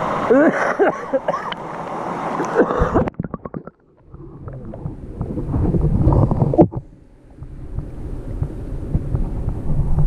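A child's laughter and voice, then about three seconds in the sound suddenly goes muffled. A few knocks follow, then low rumbling water and handling noise as the camera dips down to the stream.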